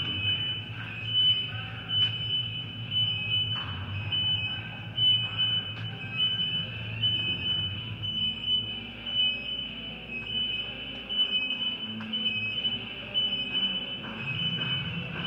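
A high-pitched electronic alarm beeping in a fast, even rhythm, over a low rumble.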